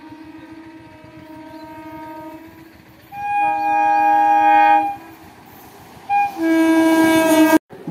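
Horn of an approaching EMU local train. It sounds faintly at first, then gives a loud blast of nearly two seconds about three seconds in, a short toot about six seconds in, and another long loud blast that cuts off abruptly near the end.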